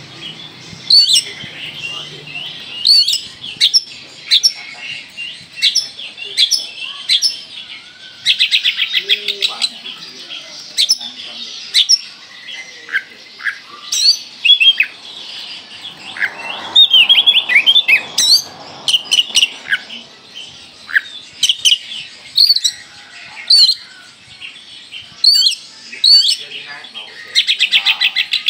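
Bornean (Kalimantan) oriental magpie-robin singing continuously: loud, sharp whistled notes and glides broken by several short, fast rattling trills. These are the rapid-fire 'tembakan' phrases of a bird in full song ('gacor') that Indonesian bird keepers look for.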